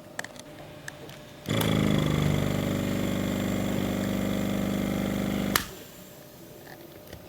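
Small 12-volt oil-less diaphragm air compressor running with a steady hum for about four seconds. It starts about a second and a half in and stops with a click a little after five seconds in.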